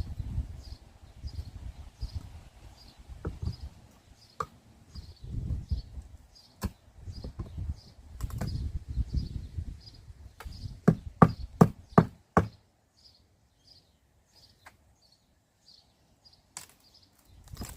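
A quick run of about half a dozen sharp knocks a little past the middle, with duller thuds and rumbling handling noise before them, from clearing and dismantling timber and a crate by hand. A small bird repeats a short high chirp about three times a second throughout.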